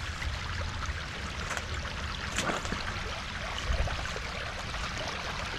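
Small creek water trickling through a blockage of fallen branches and leaves, with scattered crackles and a low rumble underneath.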